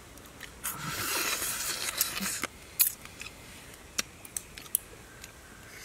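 Cooked crab shell being cracked and picked apart by hand: a brief crackling rustle, then a few sharp snaps and clicks.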